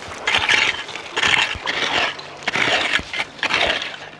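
Small clam-digging hoes raking and scraping through wet beach gravel and stones, in repeated strokes about once a second, with stones clicking against the tines.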